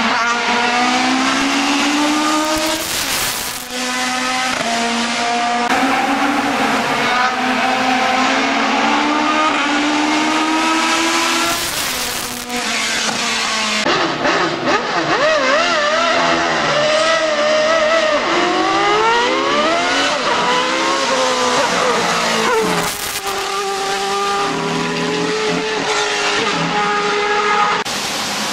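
Racing car engines at full throttle, their pitch climbing and dropping back at each upshift. In the middle a single-seater formula car revs up and down at the start line.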